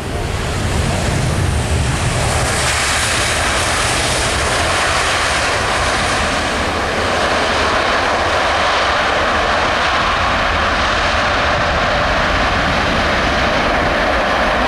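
Boeing 777 jet engines running, a loud steady rushing noise that builds over the first couple of seconds and then holds.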